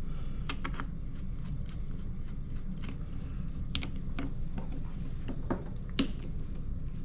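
Scattered light clicks and taps of small metal parts being handled: a screwdriver, screws and a steel grinder burr picked up and set down while the burr is unscrewed from its holder, the loudest tap about six seconds in, over a steady low hum.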